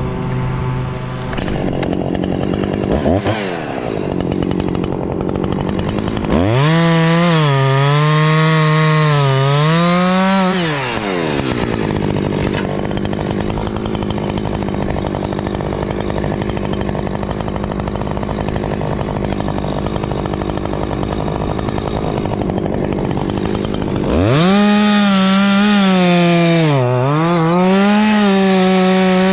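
Two-stroke chainsaw idling, then run at full throttle twice for several seconds each, about six seconds in and again near the end. Its pitch wavers and dips as the chain bites into the wood while cutting.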